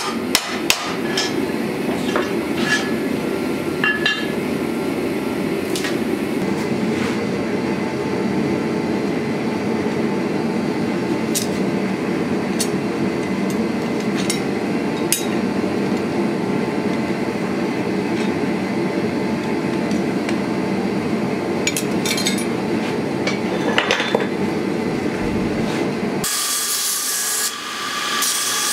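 A few hammer strikes on hot steel, then a long steady rushing noise with scattered metallic clicks and taps. About 26 s in, this gives way abruptly to a belt grinder running, a bright hiss with a steady whine.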